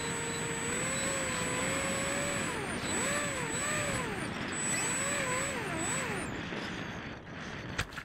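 Brushless electric motor and three-blade propeller of an RC plane, heard from its onboard camera over wind rush, the pitch swinging up and down as the throttle is worked. The motor dies away near the end, and a single sharp bump follows as the plane touches down on the grass.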